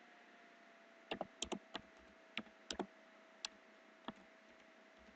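Computer keyboard keys clicking as a short title is typed: about ten faint keystrokes in an uneven run, starting about a second in and ending about four seconds in. A faint steady hum lies underneath.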